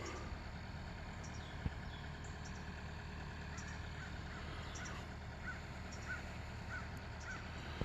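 A distant bird giving a series of short, faint calls about twice a second in the second half, over a steady low background rumble.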